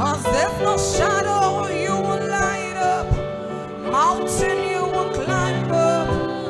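Gospel worship music: held keyboard-style chords and a bass line, with a voice sliding up and down through notes in runs.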